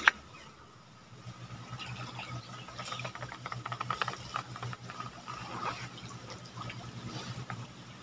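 Water splashing and streaming off a bamboo lift net as it is hauled up out of the water, a busy spatter of drips and trickles that picks up about a second in and is thickest midway. A single sharp knock right at the start.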